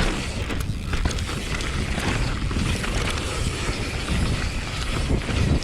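Wind buffeting the microphone and tyres rumbling over a rough dirt trail as a Transition TR11 downhill mountain bike descends, with a few sharp clicks and knocks from the ground under the wheels.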